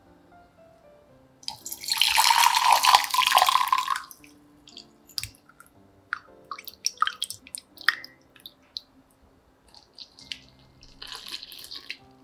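Water running for about two and a half seconds, then a scatter of light clicks and taps, and a shorter run of water near the end, over soft background music.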